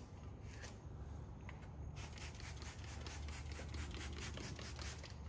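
Cloth rubbing against the outside of a Camaro ZL1's rear window glass: quick back-and-forth wiping strokes, coming faster and stronger from about two seconds in.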